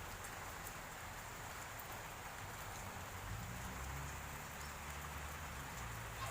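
Steady, faint background hiss with no distinct events, rain-like in texture, and a faint low hum about midway through.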